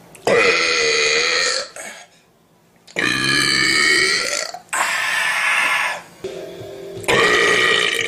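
A man belching on command: four long, loud burps, each one to two seconds long, with short pauses between.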